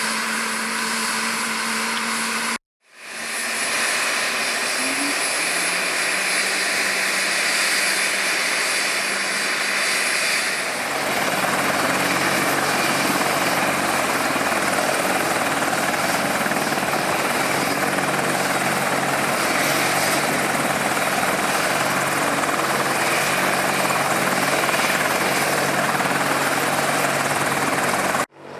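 Boeing AH-64 Apache attack helicopter running steadily, its rotor and turbine noise broken by a brief dropout about three seconds in and again near the end. After about eleven seconds the sound becomes denser, with a steady low hum.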